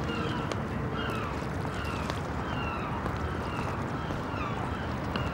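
Seagulls calling over a steady waterfront wash of water and distant city noise, the calls short and falling in pitch, about two a second.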